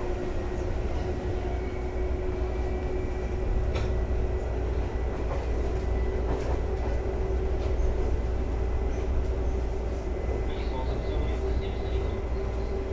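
Seibu 2000 series electric multiple unit running, heard from inside the car above the line breaker: a steady low rumble of wheels and motors with a constant hum and a faint high whine, and a single clack about four seconds in.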